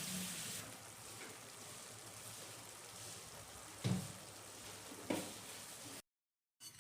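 Masala gravy in a pan, thinned with coconut milk and water, simmering with a faint steady sizzle, with two short knocks about four and five seconds in. The sound cuts out completely for about half a second near the end.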